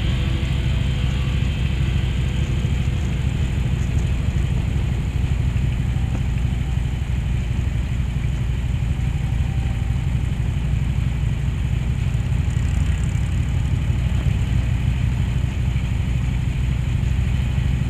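Motorcycle engine running at a steady cruising speed, heard from the moving bike, with a constant low rumble of wind on the microphone.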